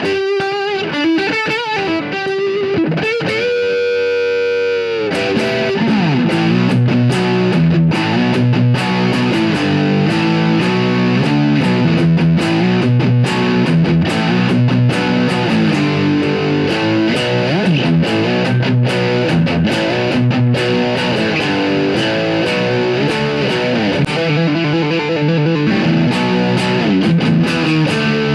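Schecter Telecaster-style electric guitar played through a distorted tube amp: a few single notes and a held, wavering bent note, then from about five seconds in a fast rhythmic riff with heavy low notes.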